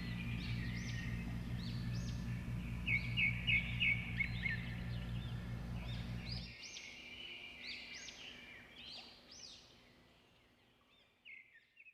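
Birds chirping, many short rising-and-falling calls overlapping, over a steady low hum that cuts off suddenly about halfway through; the chirping then fades out.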